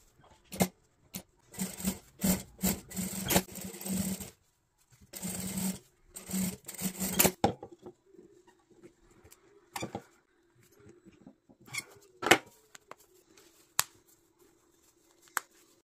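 Industrial sewing machine stitching in two runs of a couple of seconds each. Then a few separate sharp clicks as a snap fastener is set with hand snap pliers and snapped.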